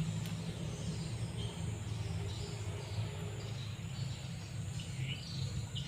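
Outdoor wildlife ambience: short high chirping calls repeating every second or so, over a steady low hum.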